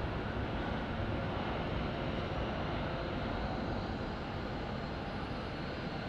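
Jet airliner's engines giving a steady noise with a faint whine running through it.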